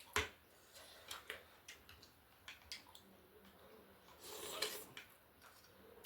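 Quiet eating sounds of a person eating noodle soup and chicken wings: scattered soft clicks and wet mouth sounds, with a louder half-second noisy sound about four and a half seconds in.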